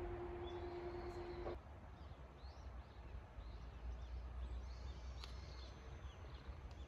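Small birds chirping in short rising and falling notes over a low outdoor rumble. A steady hum runs at the start and cuts off suddenly about a second and a half in.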